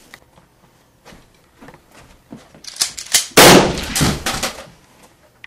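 Gunshots in a short volley. The first few seconds are quiet apart from faint knocks. Just under three seconds in, a string of sharp shots starts; the loudest comes about halfway and rings on for about a second, with several more shots through it.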